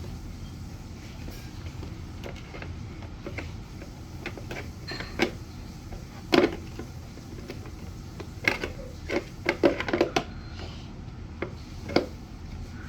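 Vacuum cleaner parts clicking and knocking as they are pushed and twisted together during reassembly: scattered sharp knocks, the loudest about halfway through and a quick run of them a little later.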